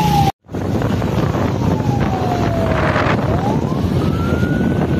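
Emergency vehicle siren wailing: one slow, long fall in pitch, a rise, and the start of another fall, over dense street and crowd noise. The sound drops out for a split second just after the start.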